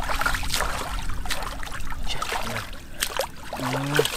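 Hands digging and scooping wet mud in shallow muddy water, with irregular splashes and slops as the mud is churned and thrown aside.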